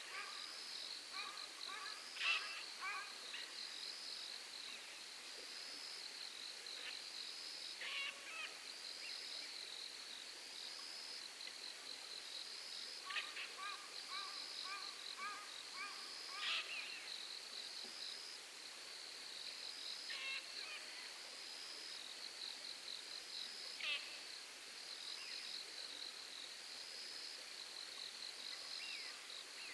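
Night insects chirping in a steady rhythm, about one high chirp a second. Over this, birds give occasional short, sharp screeching calls, with a few quick runs of short repeated calls.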